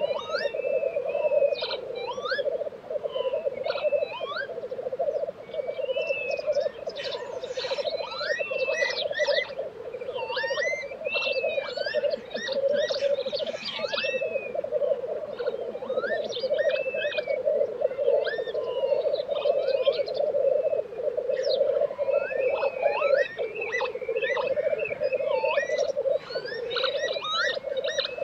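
A black grouse lek: male black grouse keep up their continuous dove-like bubbling rolling song, the display of males challenging each other on the lek. Many quick sliding high notes and a few hisses are scattered over it.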